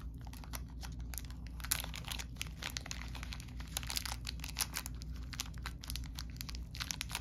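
Clear plastic bag of cardboard game discs crinkling as it is handled: a dense, irregular run of crackles.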